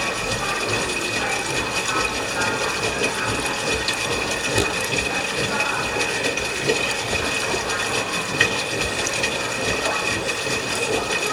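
LG washing machine running a wash cycle: steady mechanical running with water moving in the tub, a constant high whine over it and scattered small clicks.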